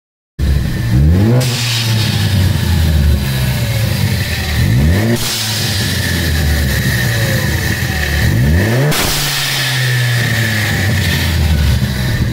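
Ford Focus ST250's 2.0-litre turbocharged four-cylinder engine revved three times while standing. Each rev rises and is followed by a hiss from the newly fitted GFB blow-off/recirculation valve venting as the throttle closes, lasting about two seconds while the revs fall.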